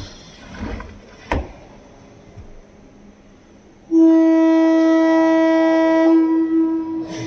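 Linear vibration welder running a weld cycle on a plastic fog lamp. A couple of knocks come as the press closes, then about four seconds in a loud, steady buzz starts as the vibration head rubs the lens against the housing. The buzz holds for about two seconds and then fades out as the vibration stops.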